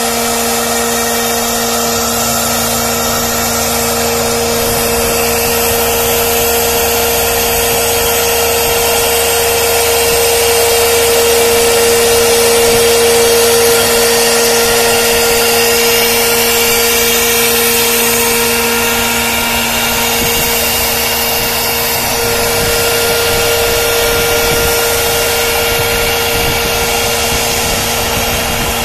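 Italian HSD spindle of a CNC wood-carving router running with a steady whine while its bit routes grooves in a wood panel, with the hiss of cutting under it and a slight swell in level midway.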